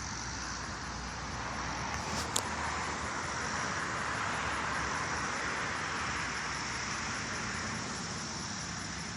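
Steady road traffic noise, with one short sharp click a little over two seconds in.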